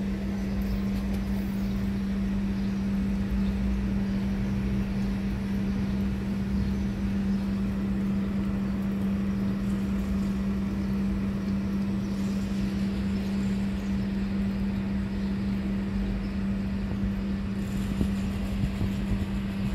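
A steady low machine hum holding one pitch, with a low rumble underneath.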